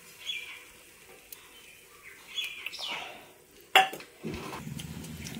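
A metal spatula clacks sharply once against a frying pan just before four seconds in, then scrapes and stirs steadily in the pan as two eggs are mixed into fried vegetables.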